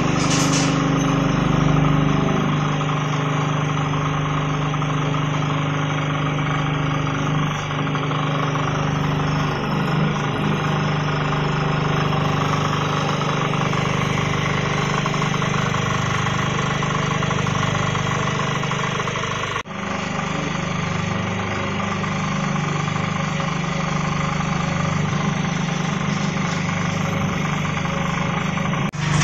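Vibrating flour sifter (round stainless-steel vibratory sieve) running: a steady, loud mechanical hum with a rattling shake. It breaks off for a moment about two-thirds of the way through, then carries on unchanged.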